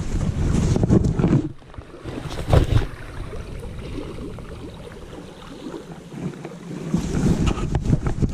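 Microphone buffeting in uneven low gusts, strongest in the first second and a half and again about seven seconds in, over the steady rush of a shallow creek.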